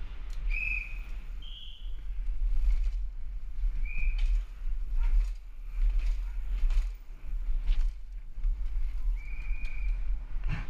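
Downhill mountain bike ridden fast over stone paving, with wind rumbling on a helmet camera's microphone and the bike knocking and rattling over the bumps. Four short, high squeals cut through, the last one longer, like disc brakes squealing under braking.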